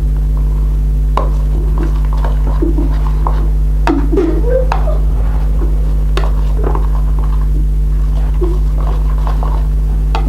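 Spoon clicking and scraping against a bowl at irregular intervals as slime is stirred, over a steady low hum.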